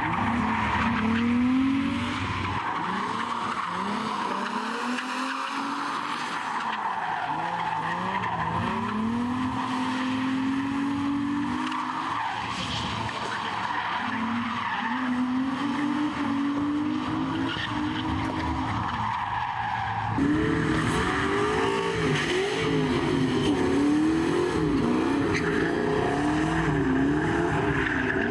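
Drift cars sliding on a track: engines revving up and down as the throttle is worked, over steady tyre noise. About twenty seconds in, a louder car takes over, its revs rising and falling quickly about once a second.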